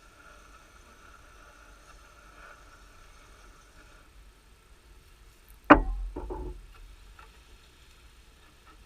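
A sharp wooden knock about six seconds in, quickly followed by two or three lighter knocks, as of beehive woodwork (box, lid or frame) being bumped.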